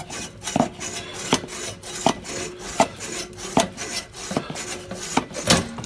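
Hacksaw cutting through a metal water pipe with steady back-and-forth strokes, about one sharp stroke every three-quarters of a second with a rasping scrape between them.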